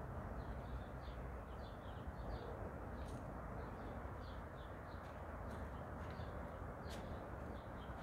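Small birds chirping in many short high notes over a steady low rumble and hiss, with a couple of sharp ticks about three seconds in and near the end.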